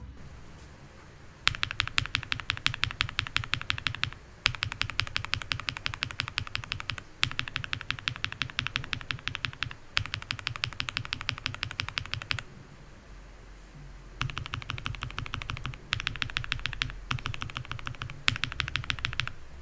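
Mechanical keyboard keys fitted with Invokeys Matcha Latte and Blueberry Chiffon switches, tapped rapidly in runs of two to three seconds at about ten clacks a second. The runs set factory-lubed switches against unlubed ones. There is a pause of about two seconds a little after halfway.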